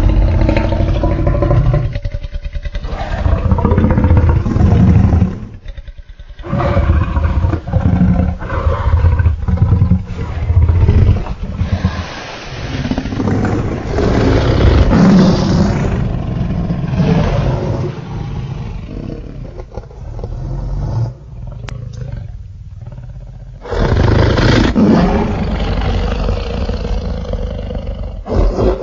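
Allosaurus roar sound effects: a string of long, deep dinosaur roars and growls, one after another with short breaks, and a longer lull of about two seconds near the three-quarter mark.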